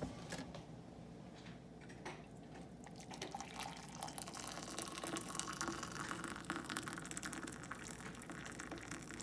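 Freshly boiled water poured from a kettle into a mug: a faint, steady pour that picks up about three seconds in.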